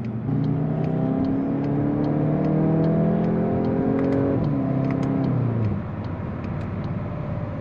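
Volkswagen Golf GTI's 2.0-litre turbocharged four-cylinder accelerating hard, heard from inside the cabin. The engine note climbs steadily in pitch, drops at an upshift a little over four seconds in, and falls away as the driver eases off near six seconds.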